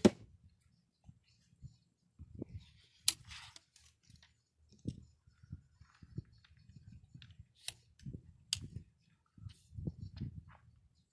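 A pistol crossbow shot and the bolt's impact on the target, two sharp cracks close together right at the start, followed by scattered clicks and soft low knocks of the crossbow being handled, cocked and reloaded, with a sharper click about three seconds in.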